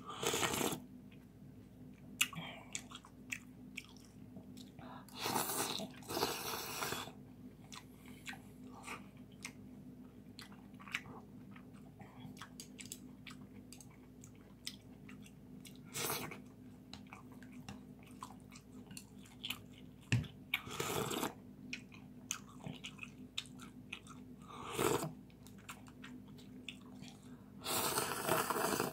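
A person eating noodle soup close to the microphone: chewing and small wet mouth clicks throughout, with about six louder slurps of broth and noodles from a spoon.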